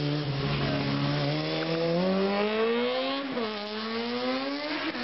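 Motorcycle engine accelerating, its pitch climbing steadily, with a drop and a fresh climb about three seconds in as it shifts up a gear.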